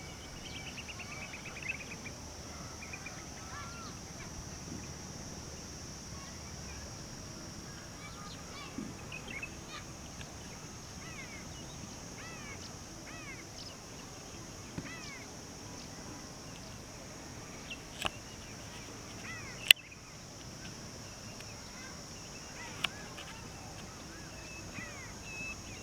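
Birds chirping in many short, arching calls over a steady high-pitched drone, with a few sharp clicks, the loudest about three-quarters of the way in.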